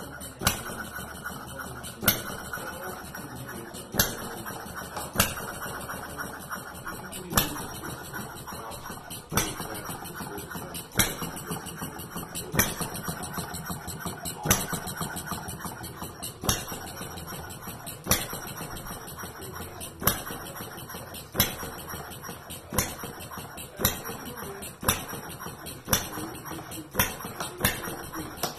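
Allman hit-and-miss model engine running, with a sharp pop as it fires about every one and a half to two seconds and a light mechanical clatter as it coasts on its flywheel between firings. The firings come closer together, about once a second, near the end.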